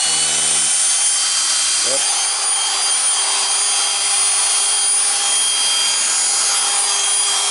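Makita 3708FC router's brushed motor running steadily at full speed with a high whine. It runs smoothly on freshly replaced ball bearings, a sign that the repair has worked.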